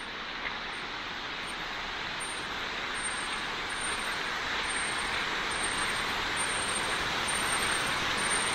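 Stream water rushing over rocks, a steady even noise that grows slowly louder as the trail draws nearer to it.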